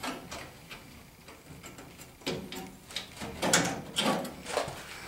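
Sheet-steel floor patch panel being slid and pushed into place against the cab floor of a 1985 Chevy K10 during a test fit: scattered metal scrapes and clunks, louder from about halfway in.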